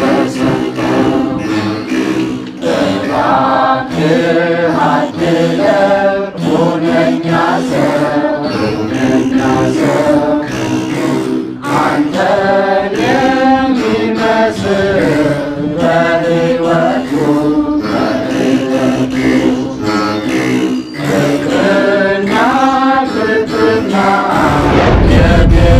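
A man singing an Ethiopian Orthodox hymn (mezmur) in a slow, chant-like style, to the low plucked tones of a begena, the large Ethiopian lyre. Near the end a loud rushing noise comes in under the music.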